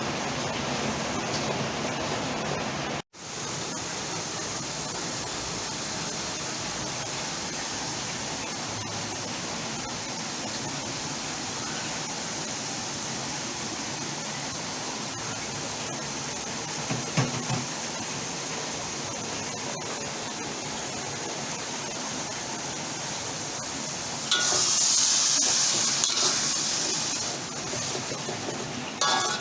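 Kangkung (water spinach) cooking in chili sambal in a pan, giving a steady sizzling hiss. The hiss briefly drops out about three seconds in and grows louder and sharper for a couple of seconds near the end.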